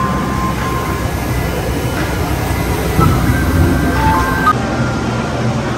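Automatic cotton candy vending machine running as it spins floss onto a stick: a steady mechanical whir with a low rumble, and a few faint short tones above it.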